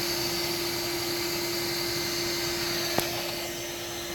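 Steady whir of a running motor with a constant hum and a high whine. About three seconds in there is one sharp click, after which the sound drops slightly and the high whine stops.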